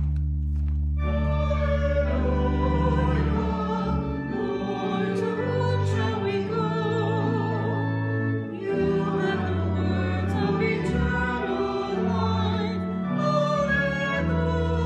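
Choir singing with vibrato over sustained low instrumental chords: the sung gospel acclamation before the Gospel reading. The low chords begin first and the voices come in about a second in.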